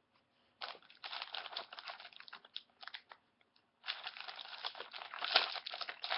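Plastic wrapping crinkling and rustling as a box of hockey card packs is handled and opened, in two stretches with a short pause between, the second denser.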